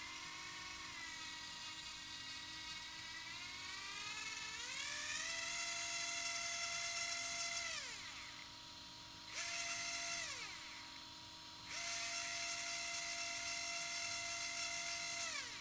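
Arrma 4S BLX brushless RC motor, freshly fitted with new sealed bearings, spinning unloaded with a high electric whine. The whine climbs in pitch about four seconds in, holds, and winds down near eight seconds, then comes a brief blip. A steady run follows from about twelve seconds and winds down near the end. It sounds better than the motor did with its old seized, dirty bearings, and the owner takes it for a fix.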